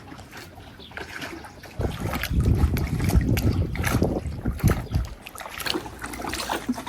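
Kayak paddle strokes splashing and dripping in the water, with wind buffeting the microphone from about two seconds in.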